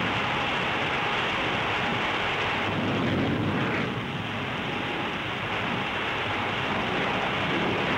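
Steady rushing jet noise of a Hawker Hunter in flight, swelling briefly about three seconds in.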